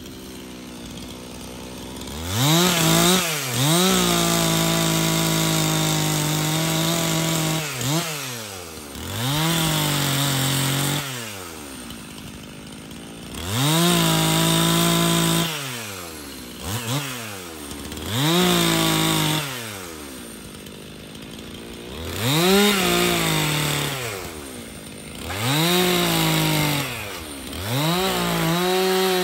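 Stihl MS 362 C chainsaw's 59 cc two-stroke engine idling for about two seconds, then revved to full throttle again and again as it cuts into old boards. Each time its pitch sags under load and drops back toward idle between cuts. It is cutting with an old, dull, badly stretched chain.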